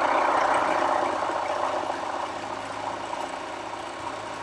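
Bernina electric sewing machine running steadily as it stitches a seam down two layers of calico. It eases off and runs quieter from about a second in.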